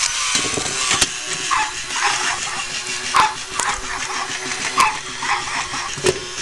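A string of short, high, dog-like yips, one or two a second, each falling slightly in pitch, with a few sharp clicks among them.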